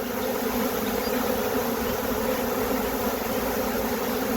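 Large honey bee swarm buzzing around the microphone, a loud, steady hum of many wings.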